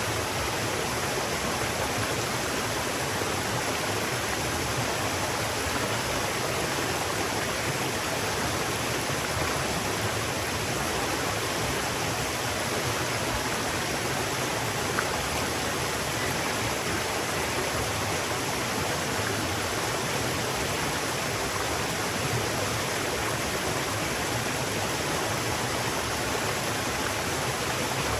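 Steady rushing of a river's flowing water, even and unbroken, with one faint click about halfway through.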